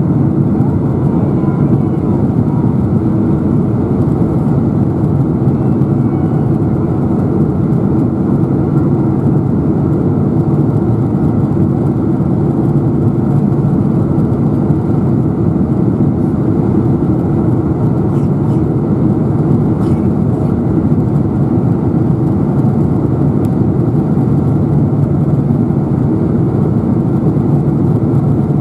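Steady cabin roar of a Boeing 747-400 on its descent, heard from a seat over the wing: the General Electric CF6 engines running and air rushing past the fuselage, with a steady low hum underneath.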